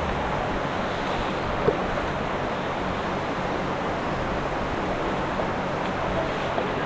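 River water rushing steadily over rocks in a slot canyon, with one short click about a second and a half in.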